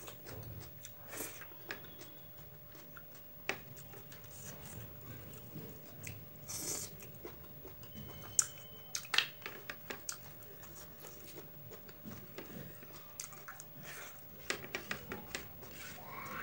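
Close-up eating sounds: chewing and biting with crisp crunches, scattered irregularly, as a person eats rice and curry by hand along with raw cucumber.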